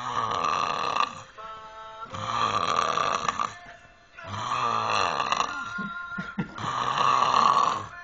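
A man snoring heavily in his sleep: four long, loud snores about two seconds apart, each lasting a little over a second. The uploader puts the snoring down to drinking.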